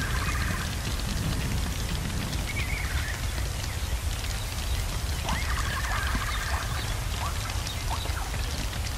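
Ambience mix of a crackling fire over a steady low rumble, with a bird-like creature calling in short chirpy phrases: near the start, about two and a half seconds in, and again from about five seconds in, ending with a couple of quick chirps.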